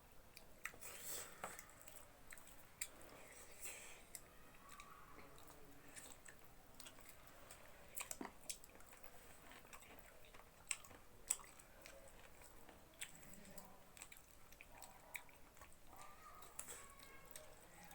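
Faint chewing and wet mouth sounds of people eating, with scattered sharp little clicks.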